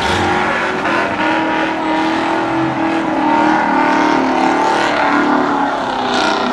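Car engine held at high revs, its pitch wavering up and down without letting off.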